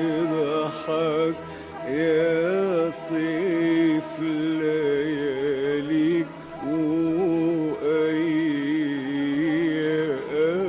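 Arabic classical music from a live orchestral recording: a continuous, ornamented melodic line with sliding, wavering notes over a sustained accompaniment.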